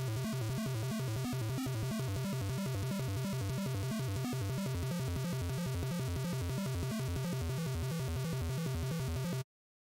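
Background music with a steady pulsing beat and strong bass, cutting off suddenly about nine and a half seconds in.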